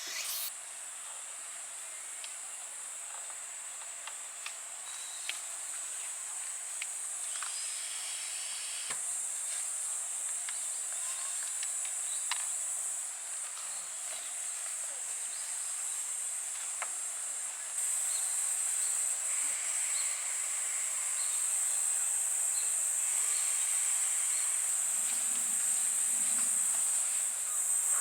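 A steady, high-pitched insect chorus, with a few faint clicks here and there.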